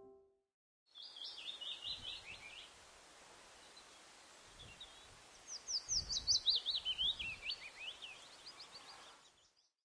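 A songbird singing over a steady background hiss. A quick run of chirps about a second in, then a longer, faster phrase from about halfway that falls in pitch.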